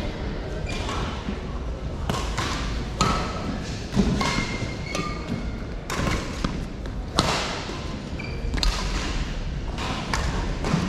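Badminton rackets striking shuttlecocks at irregular intervals, sharp cracks about every second or so, mixed with brief squeaks of shoes on the court floor.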